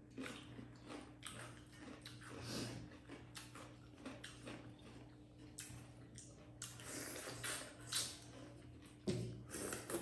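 Close-up eating sounds: chewing and lip smacking as chicken and dhido are eaten, with irregular wet clicks and small bites, over a faint steady hum.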